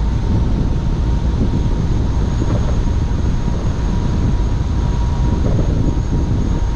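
Dodge Charger SRT 392 cruising at highway speed: steady wind buffeting on the outside microphone over road and tyre noise, with a faint steady high whine.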